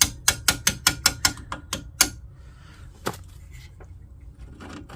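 Hammer blows on a seized steel bolt, driving it out: about ten quick, sharp, ringing strikes in the first two seconds, then one more about three seconds in.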